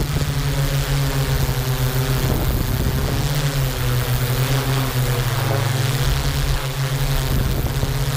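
Yuneec Q500 quadcopter's electric motors and propellers humming steadily at hover, their pitch wavering slightly as the rotor speeds adjust, over a hiss of wind.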